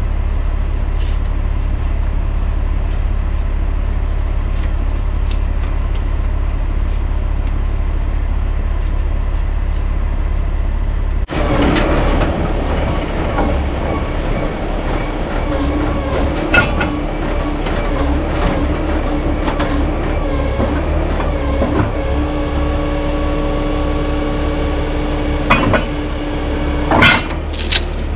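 A heavy tow truck's engine runs with a steady low rumble. About 11 seconds in, a higher whine and hum join it, and a few sharp metal clanks come near the end as the wheel-lift arm and chains are handled.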